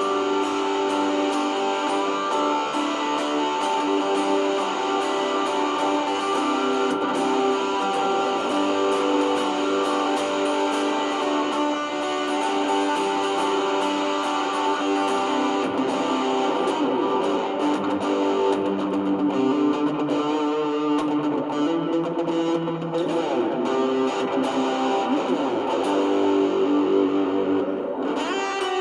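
Electric guitar played through a pedalboard with distortion and overdrive, Strymon Brigadier delay and hall reverb: sustained, overlapping notes that ring on into one another.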